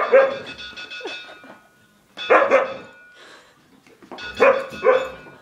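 Husky barking and yowling in three short bouts at a cowbell sound played from a phone app. The bell's steady ringing tones can be heard under the first and last bouts.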